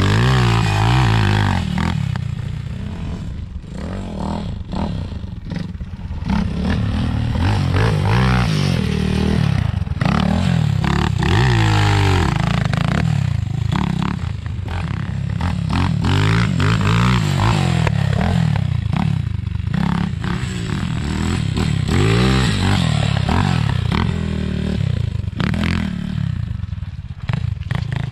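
BSE TTR250 dirt bike being ridden, its engine rising and falling in pitch over and over as the throttle is opened and closed.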